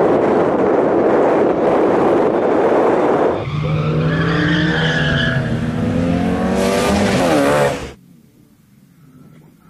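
Opel Astra GSI rally car driven hard on track, a loud dense roar of engine and tyres for about three seconds. Then a clear engine note rises and falls with the revs as the car accelerates and lifts through the corners. The sound cuts off abruptly about eight seconds in, leaving only faint background.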